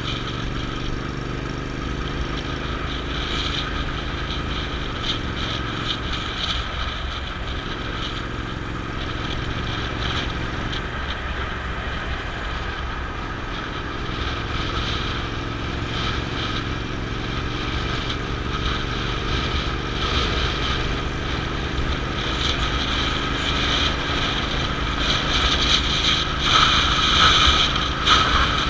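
A vehicle's engine running at road speed, its pitch shifting now and then, with steady wind and road noise over the camera that grows louder near the end.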